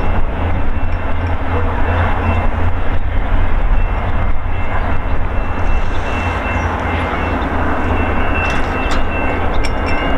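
VIA Rail passenger train running by on the rails: a loud, steady rumble of wheels and cars, with a faint thin high tone throughout and a few light clicks near the end.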